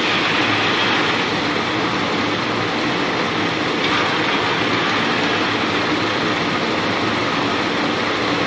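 Walnut hulling machine running steadily, a constant loud mechanical din with no breaks.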